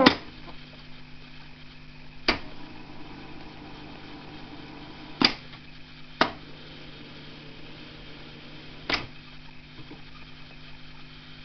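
Fialka-2 reel-to-reel tape recorder stopped after playback. The song cuts off with a click, then several sharp mechanical clicks follow from its control keys and from the reels being handled, about five in all, over the machine's steady low hum.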